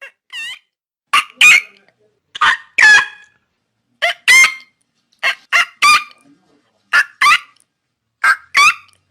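Pelican calling: short, loud calls that bend in pitch, mostly in pairs, repeating about every second and a half.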